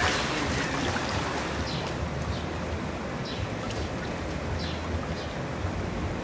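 A splash as a person drops into a hot tub right at the start, followed by the steady churning and bubbling of the tub's water.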